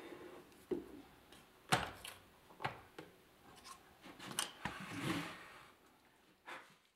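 A drill press motor fading out, then scattered sharp clicks, knocks and light scraping of wood and metal clamps being handled at the drilling jig, the loudest knock about two seconds in.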